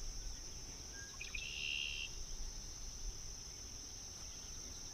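Outdoor insect chorus: a steady, faint, high-pitched buzz, with a short chirp about a second and a half in.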